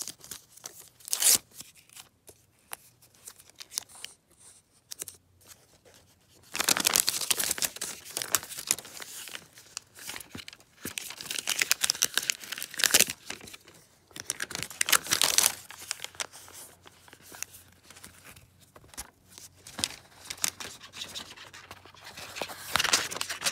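Packaging being torn and crinkled by hand in several crackling stretches of one to three seconds, with small clicks and taps between them.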